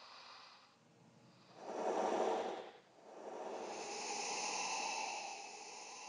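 Eerie breathing made as a horror sound effect: a short, louder breath about a second and a half in, then a longer, quieter breath.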